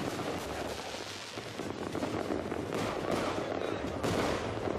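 Fireworks and firecrackers going off in rapid, overlapping pops and crackles, with a few louder bangs about three and four seconds in.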